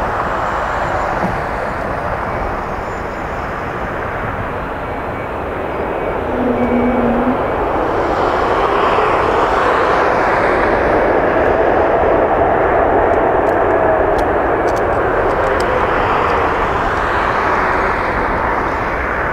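Boeing 747-400F freighter's jet engines: a steady rushing noise that swells about seven seconds in, with a whine that rises and then falls in pitch.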